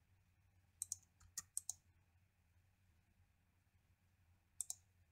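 Short, sharp clicks of a computer keyboard and mouse: a quick run of about six about a second in and two more near the end. A faint low hum lies underneath.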